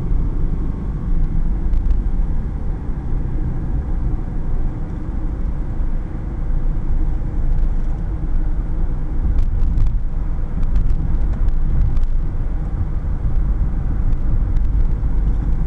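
Inside a moving car: a steady low rumble of engine and road noise while driving.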